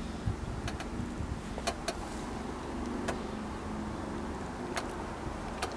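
Light clicks and knocks scattered over a low steady rumble, typical of a phone camera being handled and moved around inside a parked car.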